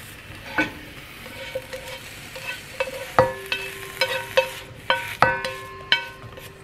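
Eggplant slices sizzling faintly in a nonstick frying pan, then a series of sharp clacks as the pan is tipped against a stainless steel bowl and wooden chopsticks push the slices in, the metal ringing briefly after each knock.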